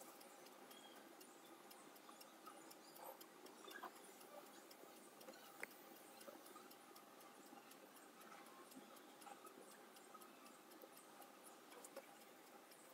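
Near silence: faint room tone with a few scattered tiny clicks.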